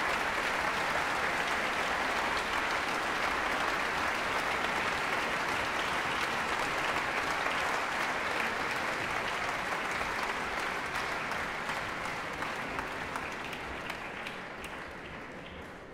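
Audience applauding steadily, the applause thinning and fading over the last few seconds, with a few separate claps standing out near the end.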